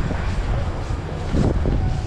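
Wind buffeting a GoPro microphone: a steady, loud low rumble in a snowstorm.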